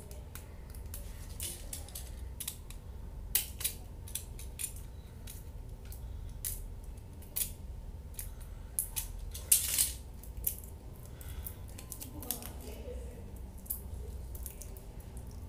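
Scissors snipping and the packet's wrapping crackling as a small skincare packet is cut open by hand: irregular sharp clicks and rustles, the loudest about nine and a half seconds in.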